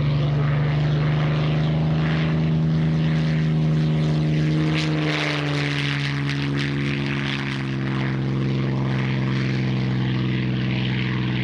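Supermarine Spitfire T9's Rolls-Royce Merlin V12 engine and propeller running hard on the takeoff run. The plane passes about halfway through, when the engine note drops in pitch and then carries on steadily as it moves away.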